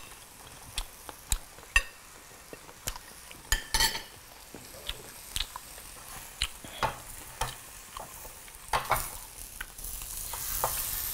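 Marinated pork chops sizzling on a tabletop grill, with frequent sharp clicks and clinks of cutlery on a plate and metal tongs on the grill plate. The sizzle gets louder about ten seconds in as a chop is turned with the tongs.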